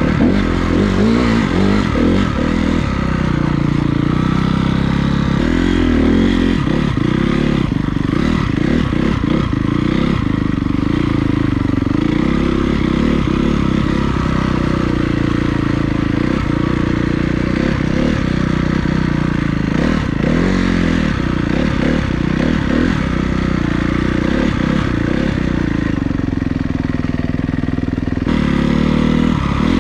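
Honda CRF250R dirt bike's single-cylinder four-stroke engine heard from on board while riding, the revs rising and falling over and over. Frequent short knocks come from the bike riding over rough, rutted snow.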